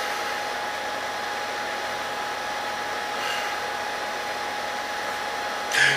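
Steady background hiss of room and microphone noise, with a faint high steady tone running under it. A brief louder noise comes near the end, just before the singing starts.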